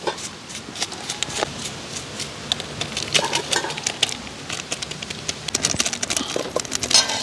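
Hands squeezing and mixing curry-seasoned raw chicken in a metal pot: a run of wet squelches and small clicks, busier near the end.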